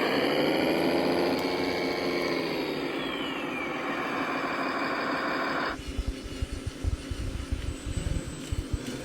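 Engine sound from a radio-controlled model truck or tractor's electronic sound module, rising and falling in pitch as the engine revs, with a brief falling whine midway. It cuts off suddenly about two-thirds of the way through, leaving irregular low thumps.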